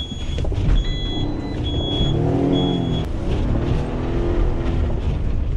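Delivery van engine running with a steady rumble, revving up and back down around the middle. A high warning chime beeps four times, evenly spaced, in the first three seconds.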